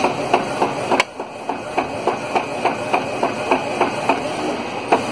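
Epson EcoTank inkjet printer printing a photo: the print-head carriage shuttles back and forth across the page, with a regular clicking about three times a second and one sharper click about a second in.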